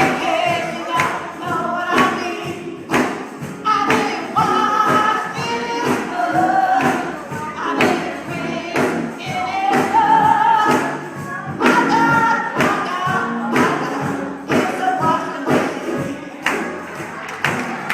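Gospel singing, several voices with wavering held notes, over a steady beat of sharp percussion strikes about two a second.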